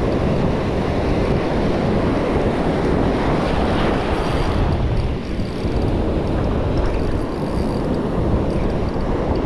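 Ocean surf washing over shallow reef, with wind buffeting the microphone: a steady wash of noise.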